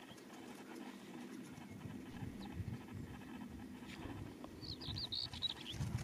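Uneven low rumble of wind on the microphone over open moorland, with a small bird's quick twittering phrase about five seconds in.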